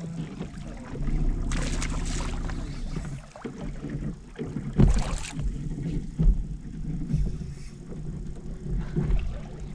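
A boat motor hums steadily for about two seconds, then gives way to wind and scattered knocks and thumps on the boat.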